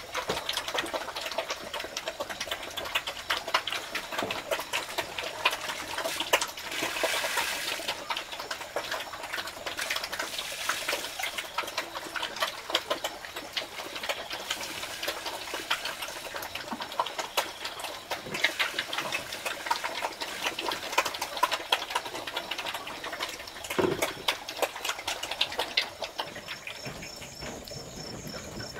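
Night chorus of tropical insects and frogs, a dense rapid clicking and chirping. About seven seconds in there is a short rush of water, as from a bucket being poured, and near the end a steady high insect trill takes over.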